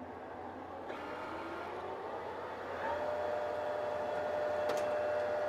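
Metal lathe spindle speeding up: its whine rises in pitch for about three seconds, then holds steady as the machine runs at speed.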